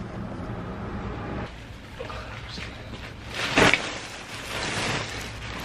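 Handling noise: a single sharp knock about three and a half seconds in, followed by a second or so of rustling, over a low steady hum.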